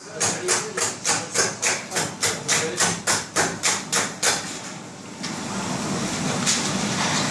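Two knives chopping rapidly into a pot of fried vegetables, about four quick strikes a second, stopping a little over four seconds in. A steady hiss follows.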